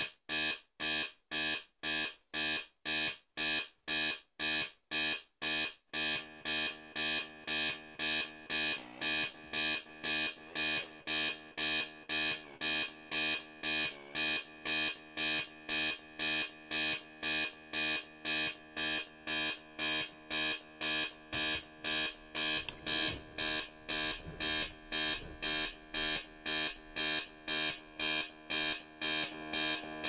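MFOS Weird Sound Generator synth circuit, played through a Deep Blue delay, making a buzzy, alarm-like electronic tone that pulses on and off in an even rhythm, about two pulses a second. After about six seconds the pulses come slightly faster and the gaps between them no longer fall silent.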